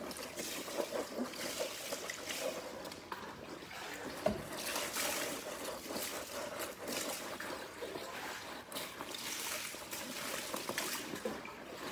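Water trickling and splashing, with small clicks and knocks of things being handled in it.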